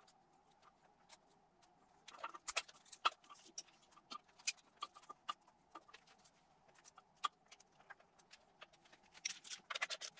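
Light, irregular clicks and taps of small metal fasteners and a screwdriver being handled on the engine's cam covers while wiring clips are fitted. They start about two seconds in and come closer together near the end.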